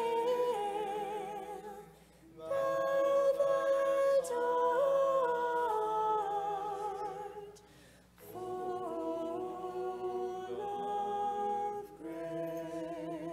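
Unaccompanied Orthodox church chant: voices singing a hymn in long phrases, with held notes that waver slightly. There are short breaks between phrases about two, eight and twelve seconds in.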